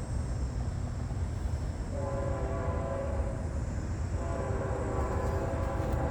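Canadian National locomotive air horn sounding a chord of several tones: one blast about two seconds in, then a longer blast from about four seconds in that carries on past the end, over a steady low rumble.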